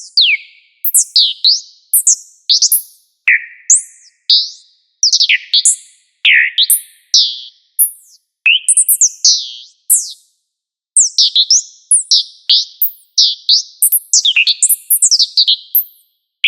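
Synthesized robot-bird chirps: short, high tweets that mostly sweep downward in pitch, each starting sharply and fading fast. They come in quick, irregular runs of a few at a time, with brief silences between.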